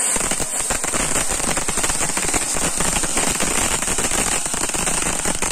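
Firework fountains spraying sparks: a steady hiss with dense, rapid crackling.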